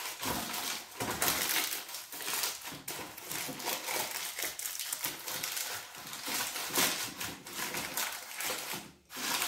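Baking paper crinkling and rustling as it is crumpled and pressed into a loaf tin: a dense run of irregular crackles, with a brief pause near the end.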